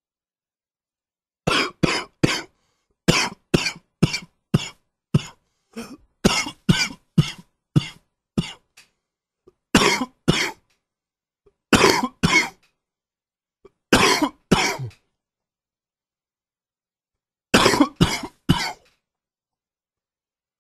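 A man with a cold coughing in fits. First comes a long, quick run of short coughs, then pairs and threes of coughs with short silences between them.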